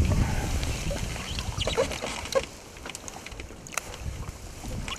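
Water sloshing against a boat's side as a pike is held in the water and unhooked, with a few sharp clicks from the lure and hooks. A low rumble fills the first couple of seconds, then it goes quieter.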